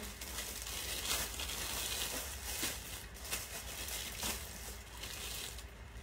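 Rustling and crinkling of clothing being handled as a garment is picked up and unfolded, with a few soft knocks.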